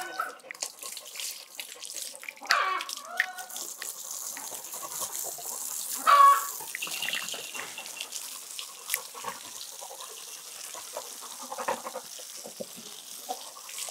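Water from a garden hose spraying onto a dog's coat and splashing onto a wet concrete floor, a steady hiss with small splashes. A short vocal sound comes about six seconds in, the loudest moment.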